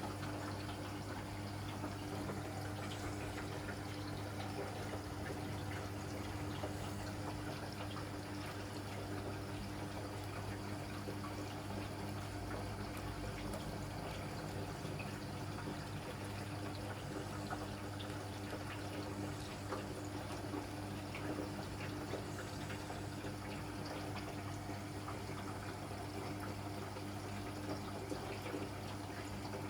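Hoover Electra 535 washing machine running its softener rinse: a steady sound of water in the tub over a constant low hum.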